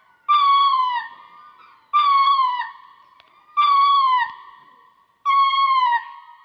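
An animal calling four times at even intervals, each call a clear, pitched cry of under a second that falls in pitch.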